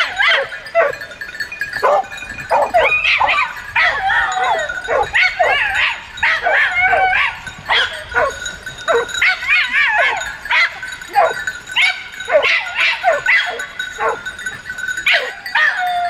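Dogs barking, yipping and whining in quick succession: short high calls with wavering, bending pitch, one after another without a break.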